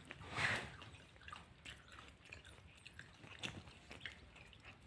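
Close-up eating sounds of a person chewing and biting chicken: a louder noisy burst about half a second in, then scattered small wet clicks and smacks of chewing.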